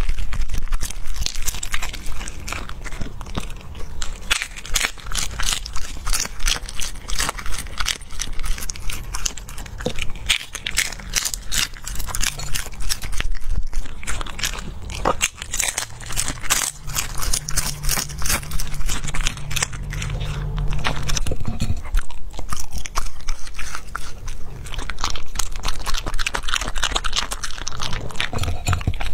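A dog chewing and crunching through a red prawn, shell and all, close to a microphone: a continuous run of quick, crisp crunches.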